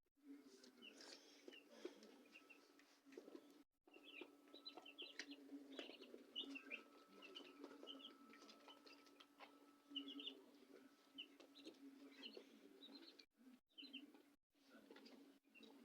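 A batch of young chicks peeping: many short, high cheeps overlapping, faint, over a low steady hum.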